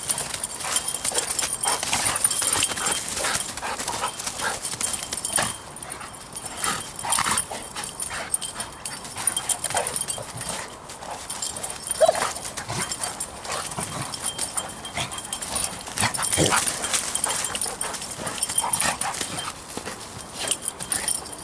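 Two dogs play-fighting in dry leaves: continual scuffling and rustling with short growls and snarls.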